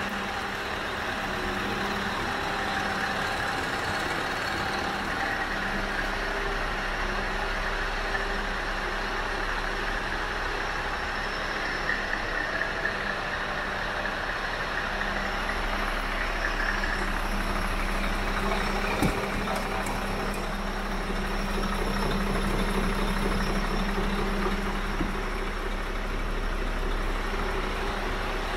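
Scania R560's V8 diesel engine idling steadily, with a sharp click about two-thirds of the way through.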